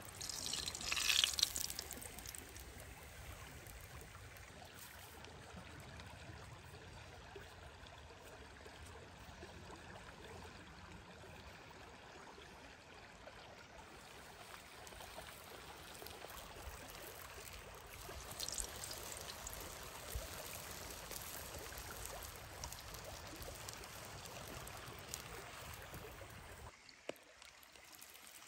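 Dough frying in hot oil in a cast iron pan, a steady sizzle that flares up loudly about a second in and again more briefly around eighteen seconds in. It drops quieter in the last second or so.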